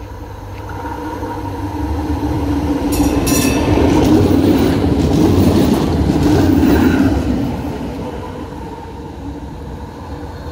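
A tram passing close by on its rails: its running noise and motor hum swell to a peak over a few seconds as it goes past, then fade away. A brief high clatter comes about three seconds in.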